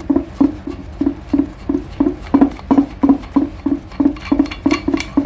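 A hand screwdriver unscrewing a small fitting at the back of a faucet: a short rasping stroke with each turn, about three a second, steady and even.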